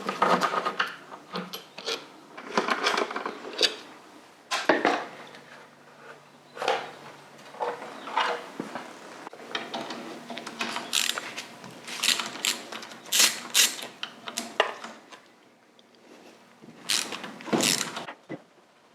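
Irregular clicks, knocks and clatter of hand tools and metal parts being handled, with a few louder knocks near the end.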